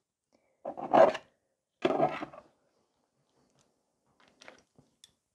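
Two short rubbing, scraping sounds about a second apart, followed by a few faint light ticks.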